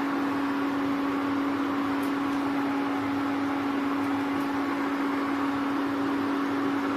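Induction cooktop running, with a steady hum from its cooling fan and a constant hiss.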